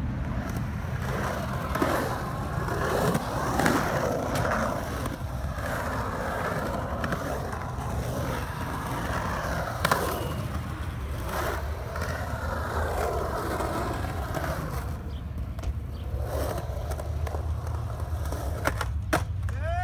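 Skateboard wheels rolling on a concrete bowl, a continuous rolling noise that swells and fades as the rider carves the walls. There are a few sharp knocks of the board, about 2, 4 and 10 seconds in and again near the end.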